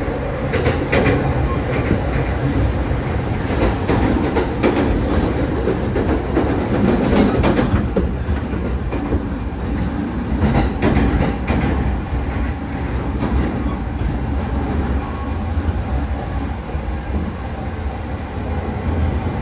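Running noise heard inside a Tokyo Waterfront Area Rapid Transit 70-000 series commuter train car at speed. The wheels give a steady rumble on the rails, with irregular clickety-clack from the wheels over rail joints, most frequent in the first half.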